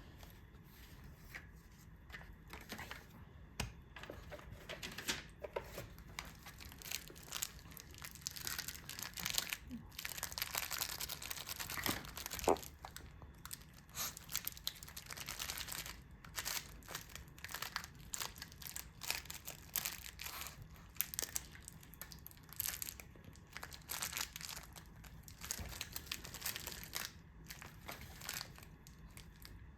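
Irregular crinkling and rustling of crinkly material, with many light clicks and taps.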